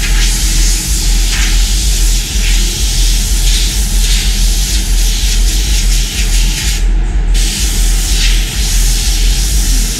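Air-fed paint spray gun hissing steadily as paint is sprayed. The spray cuts out briefly about seven seconds in. A steady low rumble runs underneath.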